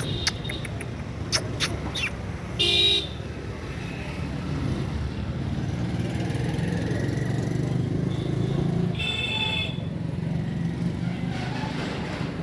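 Road traffic running steadily, with two short vehicle horn toots: one about three seconds in and another about nine seconds in. A few sharp clicks come in the first two seconds.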